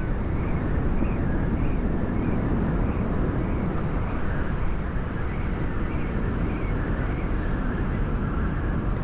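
Spinning reel being cranked steadily to retrieve a soft-plastic lure, with a faint tick about twice a second from the turning handle, over a steady rushing noise.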